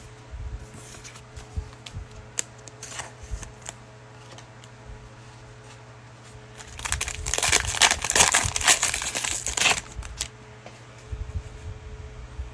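A plastic trading-card cello pack being crinkled and torn open: a few faint handling clicks, then a loud crackling rip lasting about three seconds, starting about seven seconds in.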